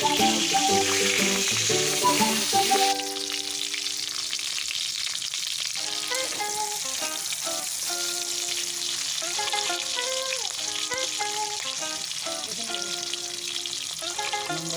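Food frying in hot oil, a steady sizzle, louder for the first three seconds or so, with background music over it.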